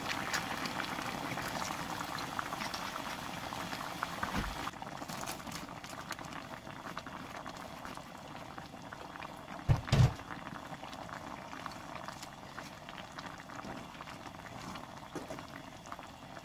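Red dakgalbi sauce bubbling and spitting in a frying pan. The bubbling drops quieter about five seconds in, and two dull knocks come about ten seconds in.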